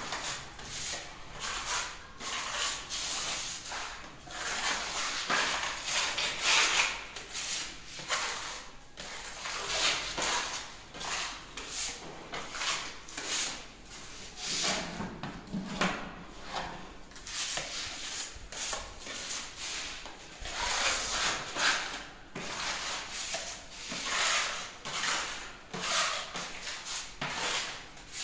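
Hand-sanding a plastered interior wall by hand: a long run of rough, scratchy rubbing strokes at an uneven pace.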